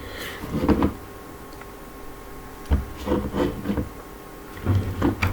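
Puzzle blocks being set down and slid into place on a surface: light knocks and rubbing, with one sharper click near the middle. Faint bits of voice come in between.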